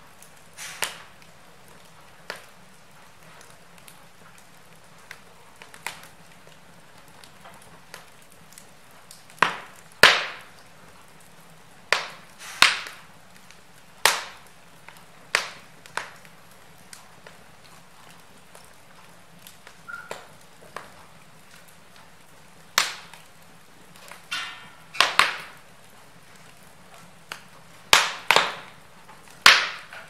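Wood fire of split logs crackling, with irregular sharp pops and snaps over a soft steady hiss. Some pops come singly and some in quick clusters of two or three.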